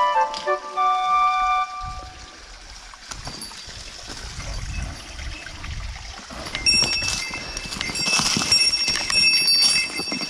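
A short chime-like jingle of falling notes for the first second and a half, then outdoor sound: a low rumble with a faint trickle of water, and from about six and a half seconds in a busy run of clicks and knocks.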